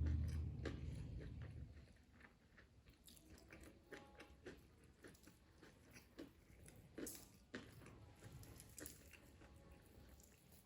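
Close-miked chewing, with scattered crisp crunches of food being bitten and chewed. A low rumble sits under the first two seconds.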